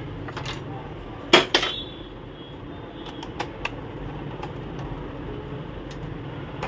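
Hard plastic clicks and knocks as parts of a disassembled ink-tank printer are handled by hand, with a louder double clack about one and a half seconds in and a few light ticks around the middle, over a steady low hum.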